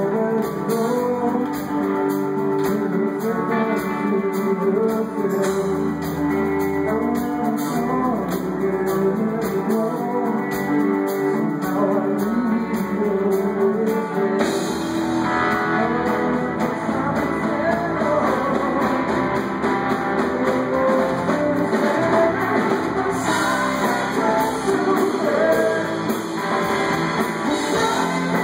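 Live rock band playing: electric guitar, electric bass and a drum kit.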